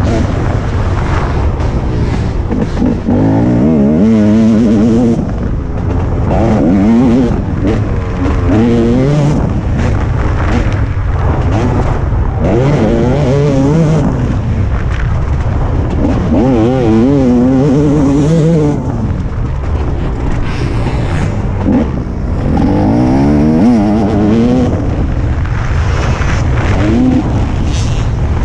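TM 300 two-stroke motocross bike engine, heard from on board, revving hard and dropping off again and again as the rider opens and shuts the throttle through the lap, its pitch climbing and falling with each burst.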